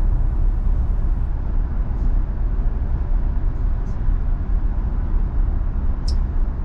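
Tesla Model Y rolling at road speed: a steady low rumble of tyre and road noise, heard from inside the cabin.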